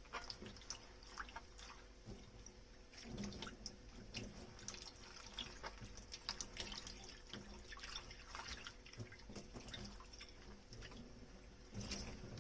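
Dishes being washed by hand at a kitchen sink: water dripping and splashing, with scattered light clicks and knocks of tableware.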